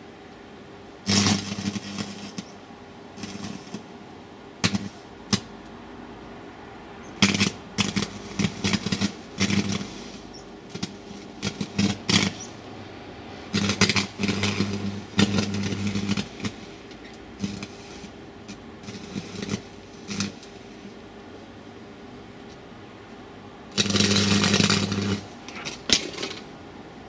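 An arc welder's electrode arcing against a circuit board in repeated bursts of crackling buzz. Some bursts are short and some run a second or more, with the longest near the end.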